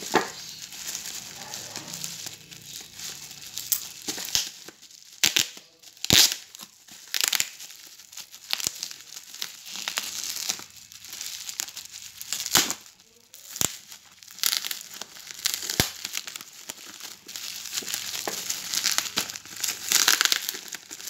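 Plastic bubble wrap around a small cardboard box being crumpled and pulled at by hand, a continuous crinkling with sharp snaps scattered through it, busier and louder near the end.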